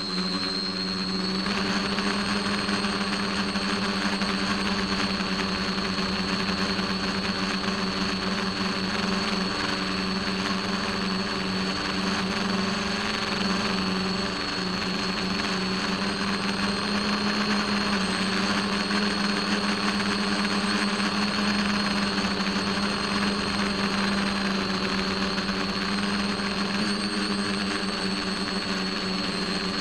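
Motor and propeller of a radio-controlled FPV aircraft, heard through its onboard camera in flight: a steady hum at an unchanging pitch with a thin high whine above it, at constant throttle.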